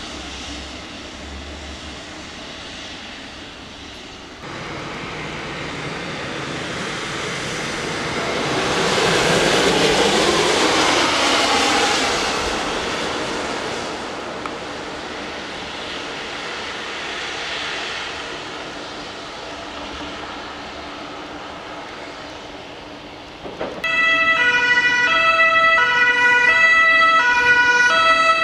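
Traffic on a wet street, with one large vehicle swelling and then fading as it passes about ten seconds in. About 24 seconds in, an emergency vehicle's two-tone siren (German Martinshorn) starts abruptly and loudly, alternating between its two pitches.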